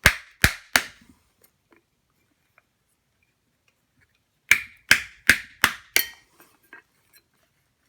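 Hammer blows on thin sheet steel set in a wooden billet, doming a repoussé piece. Three quick sharp strikes at the start, a pause of about three seconds, then a run of five strikes about a third of a second apart, tailing off into a few lighter taps.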